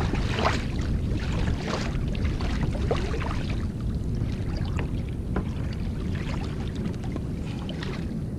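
Kayak paddle blades dipping and splashing in the sea with each stroke, over a steady low rumble of wind and water.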